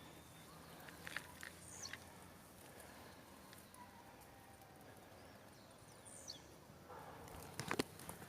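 Faint outdoor ambience with scattered soft clicks, two high whistles that fall in pitch, and a quick cluster of sharper clicks near the end.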